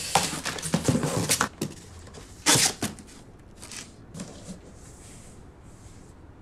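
A large cardboard gift box and the paper inside it being handled as it is opened and searched: a quick run of crinkles, scrapes and knocks over the first second and a half, one loud rustle about two and a half seconds in, then a few softer rustles.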